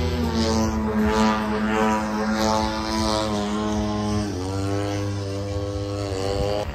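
Radio-controlled model airplane flying, its propeller and motor giving a steady droning note. The pitch falls sharply about four seconds in and then climbs back.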